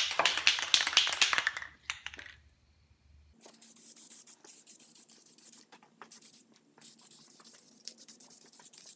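Aerosol can of spray primer rattling as it is shaken for about two seconds, the loudest part, then spraying onto the part in several hissing bursts with short breaks.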